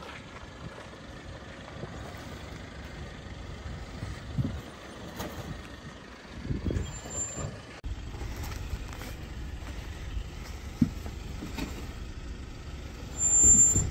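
LDV T60 Max ute's diesel engine running at low revs as the truck crawls nose-down over a steep dirt drop-off, a steady low rumble with a few soft thumps of the tyres and suspension on the bank.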